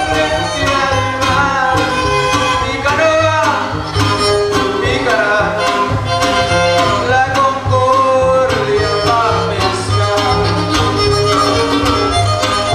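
Huasteco trio music: a violin playing a gliding, ornamented melody over two strummed guitars.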